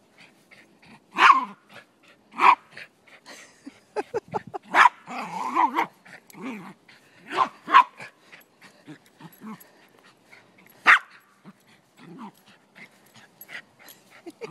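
Silky terrier barking in short, sharp single barks, one every second or two with longer gaps, and a longer drawn-out sound about five seconds in.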